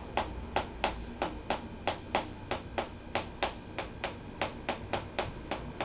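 Wooden tok sen massage hammer tapping in a steady rhythm, about three sharp taps a second.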